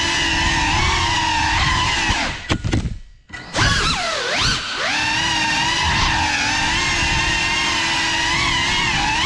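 GEPRC CineLog35 6S cinewhoop's brushless motors whining in flight, their pitch rising and falling with throttle. About three seconds in the whine chops off almost completely for a moment, then swoops back up as the throttle is punched.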